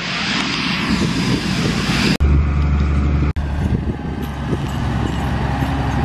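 Harvest machinery running in a corn field: a rushing, windy noise with a combine working for about two seconds, then, after an abrupt cut, the steady low diesel drone of a Challenger tractor pulling a J&M grain cart, broken by a second sudden cut a second later.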